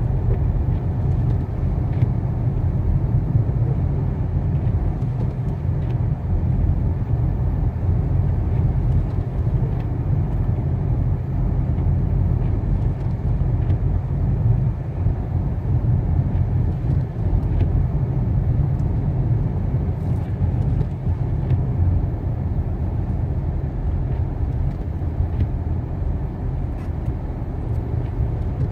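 Car driving on a snowy road, a steady low rumble of engine and tyre noise, with a few faint ticks scattered through it.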